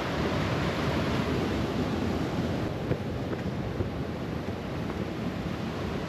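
Steady rush of a mountain river flowing over rocks.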